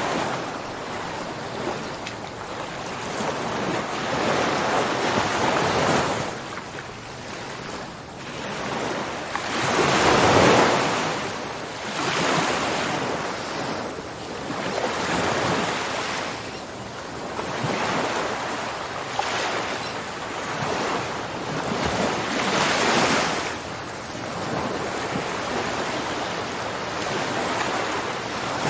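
Ocean waves breaking and washing up a shore, in a rolling rush that swells and falls back every few seconds. The biggest surges come about a third of the way in and again near three quarters.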